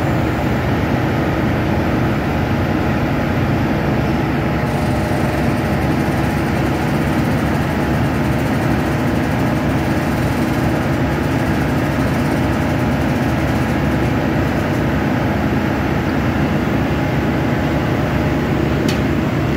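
Machinery running steadily: a continuous engine-like drone that holds the same pitch and level throughout.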